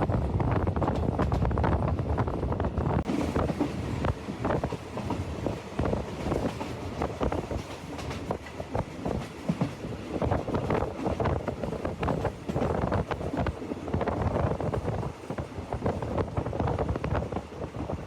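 Train running on the rails, its wheels making a dense, irregular clatter over the track, with wind buffeting the microphone.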